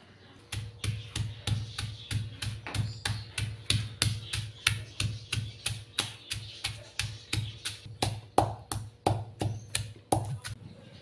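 Stone pestle pounding in a stone mortar (Thai khrok hin), grinding roots and dried chilies into jungle curry paste. Each blow lands with a dull thud and a sharp stony click, about three strokes a second, steady until shortly before the end.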